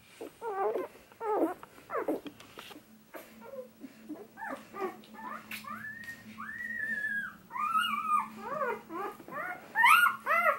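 Newborn puppies squeaking and whimpering while nursing: many short high-pitched cries that rise and fall in pitch, two longer drawn-out whines in the middle, and the loudest burst of cries near the end.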